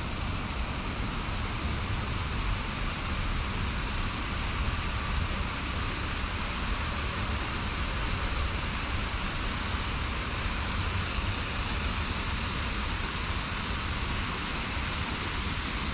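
Steady rush of water spilling over a stepped concrete spillway into a pond: an even hiss over a low rumble, unchanging throughout.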